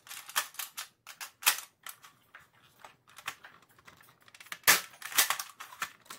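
A spring-powered Nerf Longshot fitted with a Jet Blaster Omni Kit being handled and primed: a run of sharp plastic clicks and clacks. A little over halfway through comes one louder snap as the plunger fires a dart.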